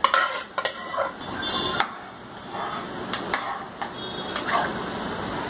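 A ladle scraping and knocking against cookware as thick lentil puree is emptied from an aluminium pressure cooker into a pot, then stirring the dal and chicken mixture, with a handful of sharp knocks scattered among the scraping and sloshing.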